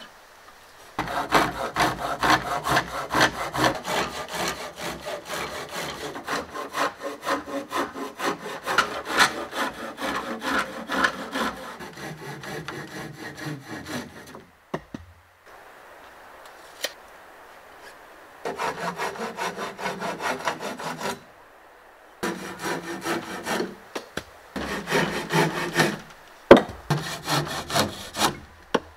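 Hand saw cutting through a wooden frame board, in quick back-and-forth strokes: one long run of sawing, a pause about halfway, then several shorter runs.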